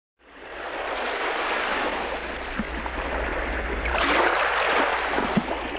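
Steady rush of waves and water, fading in at the start and swelling about four seconds in, over a low steady rumble.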